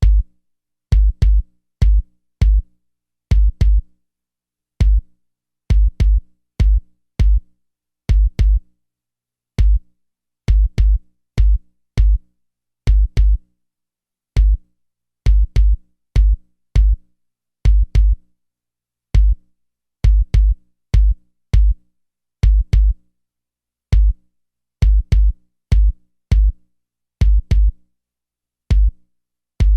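Audio test disc's 50 Hz bass test: short, deep synthesized bass hits in a drum-machine beat pattern, each starting with a sharp click, with silent gaps between the hits.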